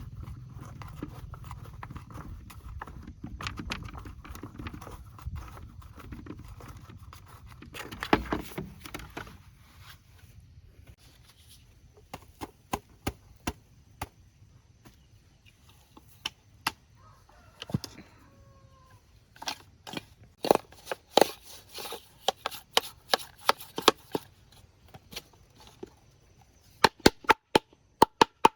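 A low rumble for the first several seconds, then a run of sharp knocks and taps of tools at work, several in quick succession near the end.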